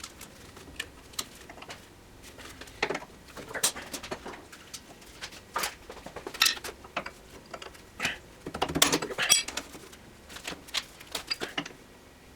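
Scattered metallic clicks and knocks of tools and loose parts being handled while a vintage Unisaw is disassembled, with a short burst of rattling about nine seconds in.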